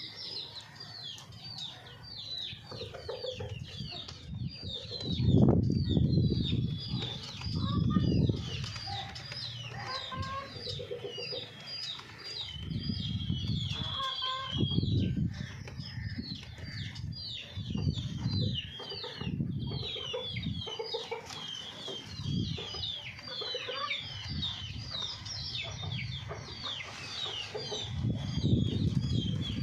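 Hens clucking among a constant busy patter of high, quick chirps, with a low rumble swelling and fading every few seconds.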